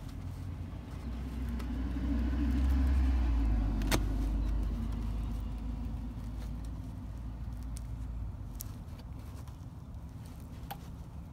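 Low rumble of a passing vehicle, swelling over the first few seconds and then fading away, with a single sharp click about four seconds in.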